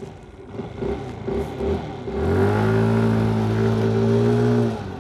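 Geely 50cc moped engine speeding up, then running at steady high revs for a couple of seconds as the scooter rides up. The sound cuts off sharply near the end as the throttle is shut for a hard stop.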